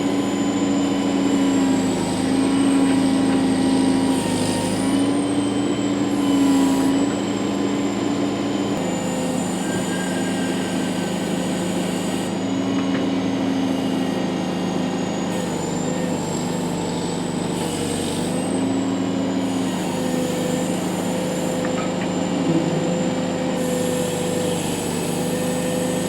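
Case 780 backhoe's diesel engine running steadily under work, with a high whine that rises and eases back twice, about five seconds in and again near eighteen seconds.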